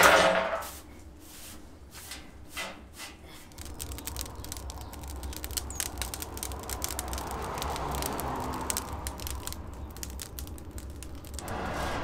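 A straw broom sweeping out a hot tandoor: one loud scraping stroke at the start and two fainter ones about two and a half to three seconds in. Then a steady rushing noise with scattered small crackles from the fire burning in the tandoor pit.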